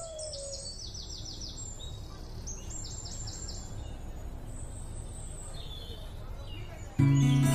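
Birds chirping in quick, repeated trills over a low steady background rumble; music comes in loudly near the end.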